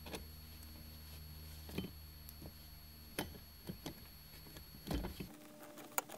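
Scattered light clicks and taps of a socket and screw being worked by hand against the plastic blower-module housing under a dashboard, denser near the end. Under them runs a steady low hum that cuts off suddenly about five seconds in.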